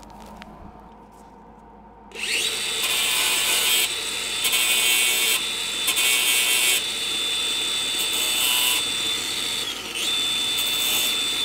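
A handheld electric power tool spins up about two seconds in and runs with a steady high whine over a coarse grinding noise that swells and eases as it is worked against metal. It winds down briefly near the end, restarts, and winds down again.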